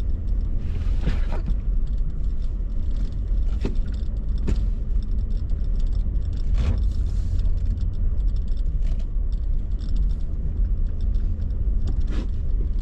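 Steady low rumble of a pickup truck driving slowly, heard from inside the cab, with a few sharp knocks and rattles from bumps along the way.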